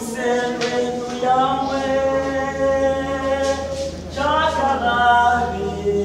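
Church choir singing in several-part harmony, holding long notes, with new phrases beginning about a second in and again about four seconds in.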